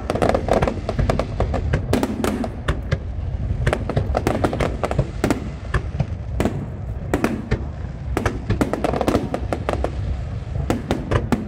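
Aerial fireworks display: shells bursting in volleys, with dense sharp crackling that comes in clusters every second or two over a steady low rumble.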